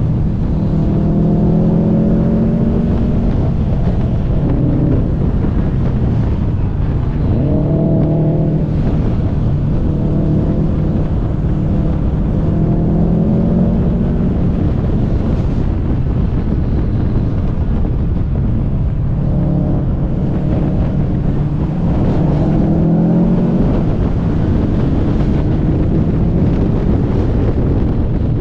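Car engine pulling up through the revs again and again, its note rising and dropping back between pulls as the car drives hard on a winding road, over heavy road and wind noise.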